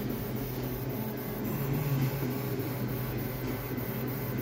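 Anycubic FDM 3D printer running a print: the stepper motors whine in quickly shifting pitches as the print head moves, over a steady hum.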